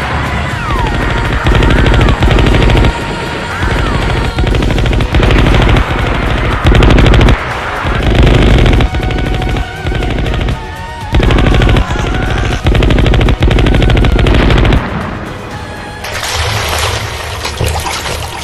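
Repeated bursts of rapid automatic gunfire, each burst a second or so long, with music underneath. Near the end the gunfire stops and a steady hiss takes over.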